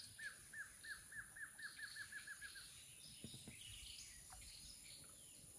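Faint forest bird song: one bird gives a series of about a dozen short, hooked whistled notes that speed up and stop about two and a half seconds in, with fainter high chirps from other birds after it.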